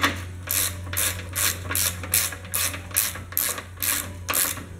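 Hand ratchet wrench clicking in quick, even strokes, about three a second, as it tightens the nut on a shock absorber mount.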